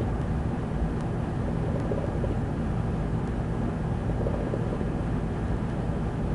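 Steady low rumble of a breeze blowing across the microphone, unchanging throughout.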